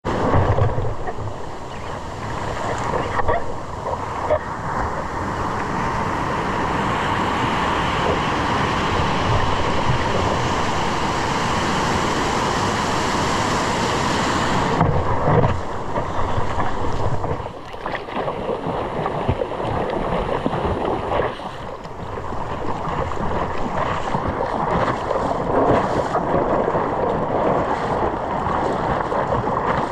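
Ocean surf and moving water with wind buffeting the microphone; the hiss thins out about halfway through.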